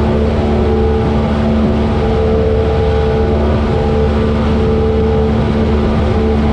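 Cessna light airplane's piston engine and propeller running steadily with a loud, even drone.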